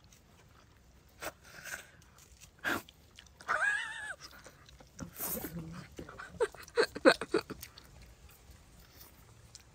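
Close-up chewing and gnawing on braised chicken on the bone, with scattered soft crunches and clicks from the crunchy, chewy meat. About three and a half seconds in, a dog gives a short high whine that rises and falls.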